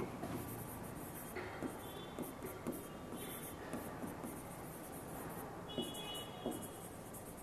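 Pen writing on the glass of an interactive display board: soft taps and scratchy strokes, with a brief high squeak twice.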